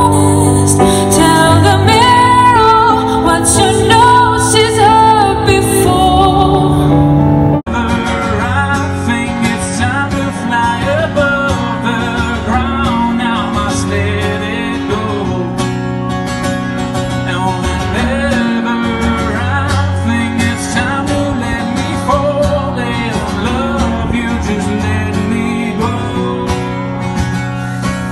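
Live music: a woman singing to held keyboard chords, then, after an abrupt cut about eight seconds in, a man singing and strumming an acoustic guitar.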